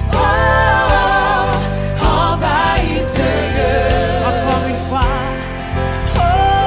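Christian worship song: a voice sings long held notes with vibrato over a band with a steady bass line.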